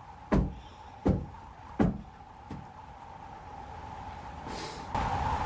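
Four dull thumps, evenly spaced about three-quarters of a second apart, over a steady high hum, with a short hiss near the end.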